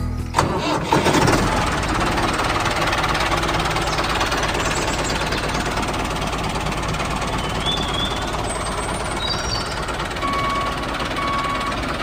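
A small engine running steadily with a knocking, machine-like pulse, as of a mini tractor at work. A few short bird-like chirps sound over it, and a beep repeating about once a second, like a reversing alarm, begins near the end.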